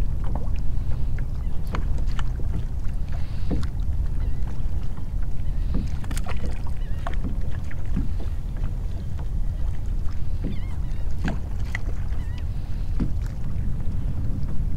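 Water lapping against a kayak's plastic hull over a steady low rumble of wind on the microphone, with scattered light ticks and taps.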